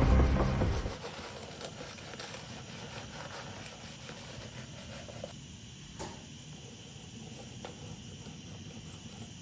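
Film score fading out about a second in, then a quiet background of faint, steady insect chirring, with a single soft click about six seconds in.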